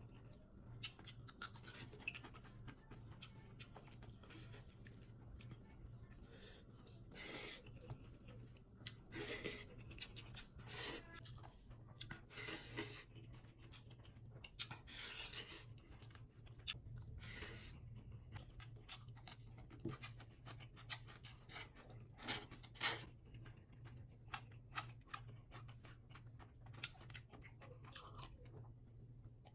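A person chewing mouthfuls of chicken curry and rice, eaten by hand, with irregular wet smacks and a few crunches.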